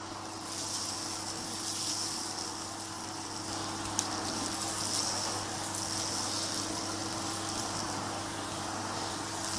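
Kenwood canister vacuum cleaner running steadily on a carpet, a constant motor hum under a airy hiss of suction, as it sucks up scattered grains of rice. A couple of sharp ticks, one about four seconds in, stand out above the steady noise.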